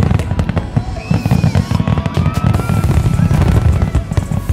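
Aerial fireworks shells bursting in a rapid, dense run of booms and crackles, one report crowding on the next.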